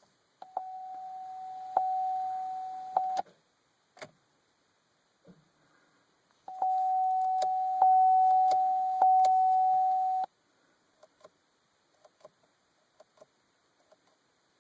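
2011 Chevrolet Cruze failing to start: sharp clicks, with a single click being all it gives on a start attempt, while a steady high electronic tone sounds in two stretches of about three and four seconds, followed by a few faint clicks near the end.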